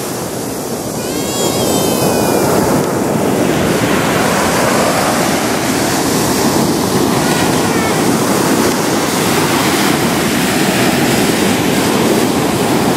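Ocean surf breaking and washing up onto a sandy beach, a steady rush of waves.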